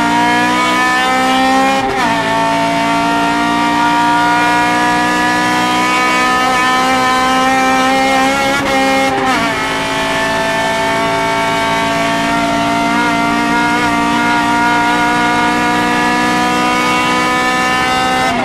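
Honda Civic VTi's 1.6-litre VTEC four-cylinder engine heard from inside the cabin, pulling hard with its pitch climbing slowly through each gear. It drops sharply at upshifts about two seconds in and about nine seconds in, and again at the very end.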